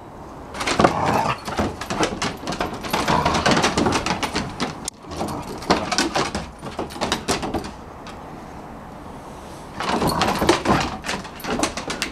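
A whippet and a kelpie cross play-fighting on a wooden deck: a rapid clatter of claws and paws scrabbling and knocking on the boards in two spells, with a quieter pause of about two seconds between them.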